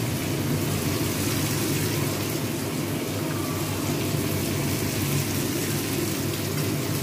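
Steady sizzle of ground spice paste and soaked rice frying in mustard oil in a kadai, with a steady low hum underneath.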